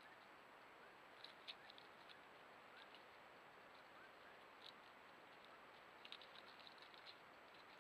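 Faint scattered ticks and rustles in dry leaf litter as a Montezuma quail forages, in small clusters about a second in and again around six to seven seconds in, over a quiet steady hiss.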